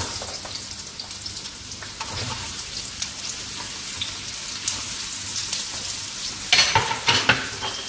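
Cabbage sizzling and crackling steadily in hot oil in a pan as it is sautéed. There are a few louder surges near the end.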